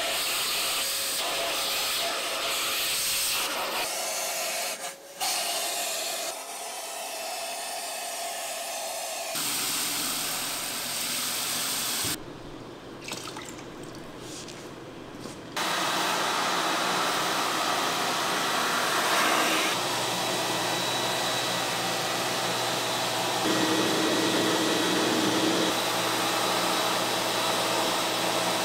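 Kärcher spray-extraction carpet cleaner: hissing and rubbing from cleaning work in the first half, then a quieter stretch as liquid is poured into its tank. From about halfway its motor runs with a steady, even hum.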